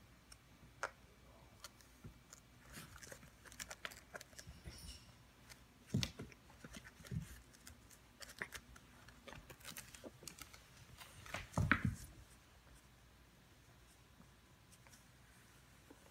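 A cat wrestling and chewing a tennis ball on a hardwood floor: soft, scattered scratches, rustles and clicks of claws, teeth and fur on the ball and the floor, with two louder bumps about six and twelve seconds in.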